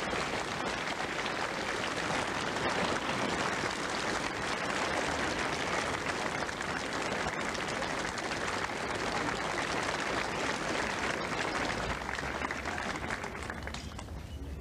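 A large crowd of schoolboys clapping, a dense, steady applause that dies away near the end.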